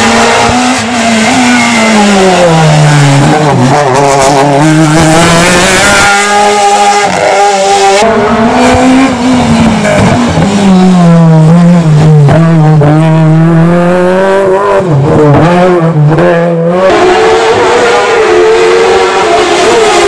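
Racing car engines at full effort through a bend: first an Alfa Romeo 155 race car, then a Volkswagen Golf Mk1 race car. The engine note falls as each car slows for the corner, then climbs again through several gear changes as it accelerates away.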